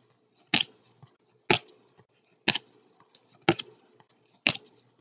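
A stack of trading cards thumbed through in the hands, each card moved giving a short click, about one a second, five in all.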